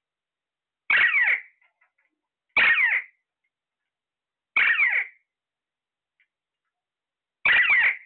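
Alexandrine parakeet calling: four short calls, each about half a second long with a falling pitch, two to three seconds apart.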